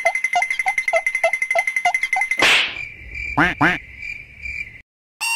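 Cartoon sound effects: a steady high electronic tone with a short croaking pulse about three times a second. About two and a half seconds in it is cut off by a whoosh, followed by two quick springy boings that swoop down and up in pitch.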